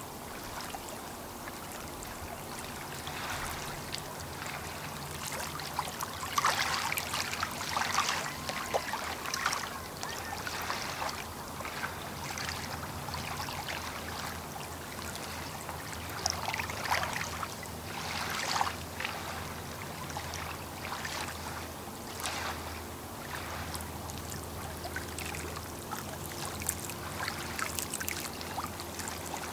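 Small lake waves lapping and splashing against the shore in irregular splashes, heavier for a few seconds now and then, over a faint steady low hum.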